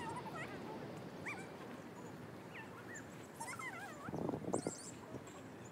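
Small birds calling: short whistled notes that glide up and down, with a few high twittering trills, over a steady outdoor background hum. A brief rustle comes about four seconds in.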